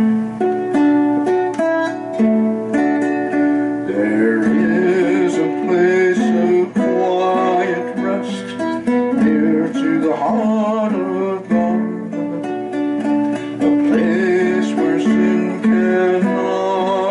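A worship song played on strummed acoustic guitar, with a singing voice over it at times.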